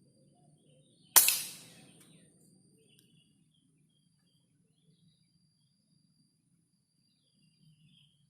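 A single shot from an air rifle fitted with a homemade PVC suppressor: a sharp crack about a second in that dies away within a second. Faint insects and bird chirps are heard around it.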